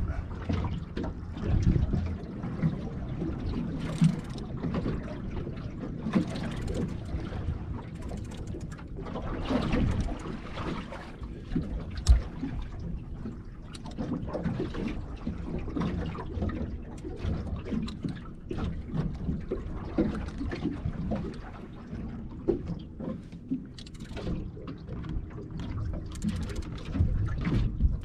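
Sea water slapping and splashing against the hull of a small boat drifting at sea, in uneven surges, with scattered knocks; the sharpest knock comes a little before halfway through.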